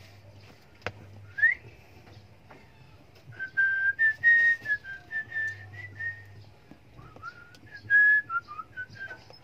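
A person whistling a tune in short, clear high notes: a single rising note, then two runs of notes with a pause between them, the second near the end.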